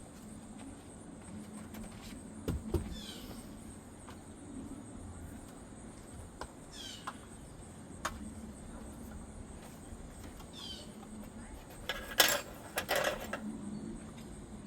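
A few scattered knocks and clicks, loudest in a short clatter near the end, while a bird gives a short falling chirp three times, a few seconds apart.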